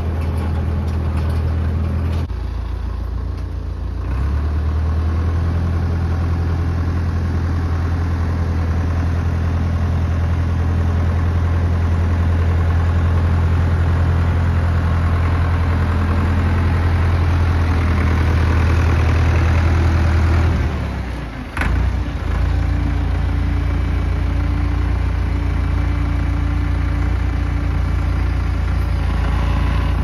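Massey Ferguson MF 30 industrial tractor engine running while the tractor is driven. The engine speeds up about four seconds in, holds steady, then drops back near twenty seconds with a single sharp knock, and runs on steadily after that.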